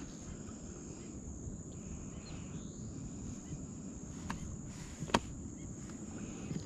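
Quiet outdoor background noise with a faint steady high-pitched whine, broken by two sharp clicks or knocks, one about four seconds in and a louder one just after five seconds.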